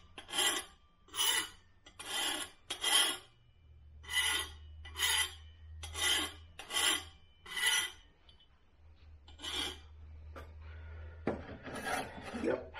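Hand file scraping along the edge of a steel knife blade, about a dozen strokes at roughly one a second, with a short pause about eight seconds in.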